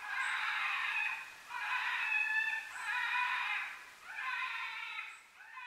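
Predator game call playing a repeated cat-like, meowing animal cry, about five falling, wavering cries, each about a second long, one after another.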